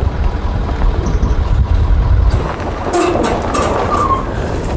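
Ford F-250 pickup with a dump trailer full of dirt going down a steep hill: a deep rumble from the truck and loaded trailer, joined about halfway through by a run of knocks and rattles.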